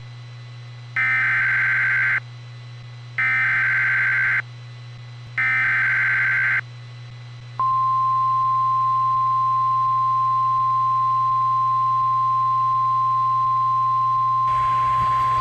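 Emergency Alert System header: three screeching bursts of digital data, about a second each with short gaps between. About seven and a half seconds in, the single steady pitch of the National Weather Service warning alarm tone starts and holds.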